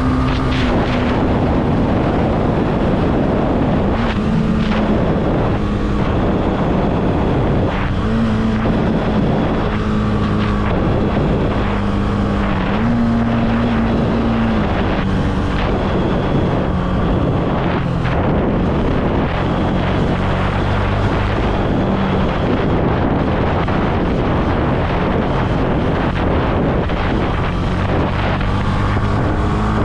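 Honda CB300F's single-cylinder engine running under way, its note stepping up and down every few seconds as the throttle and gears change, with wind noise on the microphone.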